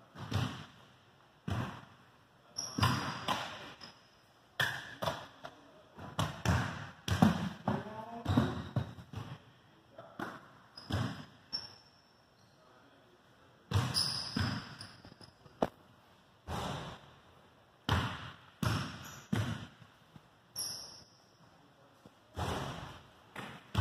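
Irregular runs of hollow thuds echoing around a gymnasium's hard floor, with short high squeaks between some of them.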